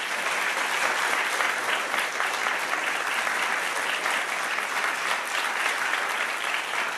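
Congregation applauding steadily: sustained clapping from a large audience in a reverberant sanctuary, welcoming the guest speaker.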